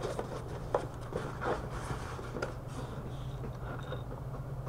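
Soft, scattered taps and rustles of small items being handled on a table and put into a box, over a low steady hum.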